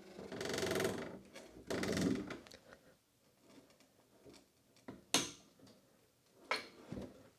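Heavy machine saddle hanging from an engine hoist being pushed and shifted into place: two scraping, rattling noises in the first two seconds, then a few sharp knocks near the end.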